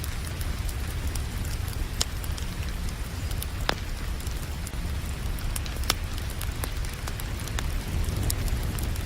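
Steady rain with a wood fire crackling, giving a few sharp pops about two, three and a half, and six seconds in, over a constant low rumble.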